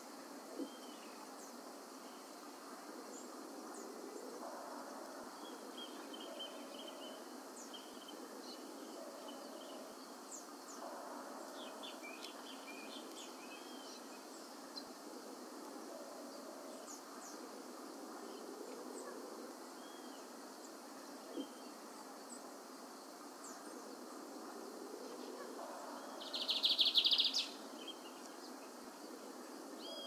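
A brown-plumaged Lined Seedeater singing softly, giving scattered short high notes and little slurred phrases. Near the end comes one much louder, rapid buzzing phrase lasting about a second.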